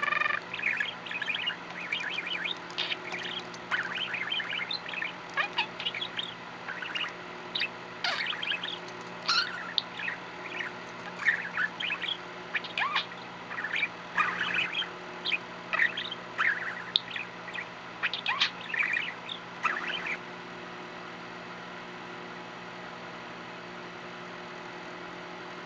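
Pet budgerigar chirping and trilling in a quick, busy chatter of short notes, over a steady low hum. The chattering stops about twenty seconds in.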